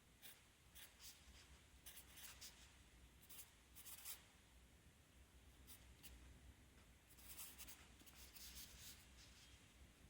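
Pencil writing on paper: faint, scratchy strokes in quick irregular bursts.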